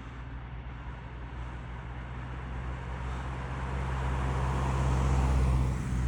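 A road vehicle approaching, its engine hum and tyre noise growing steadily louder over several seconds.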